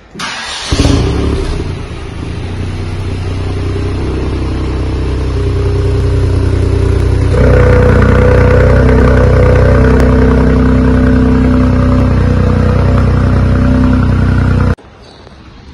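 Mk8 Ford Fiesta ST's 1.5-litre three-cylinder turbo engine, heard at the tailpipes of its valved Milltek exhaust. It starts with a loud flare about a second in, then runs at a steady idle. About halfway through the sound steps up louder and deeper, and it cuts off suddenly near the end.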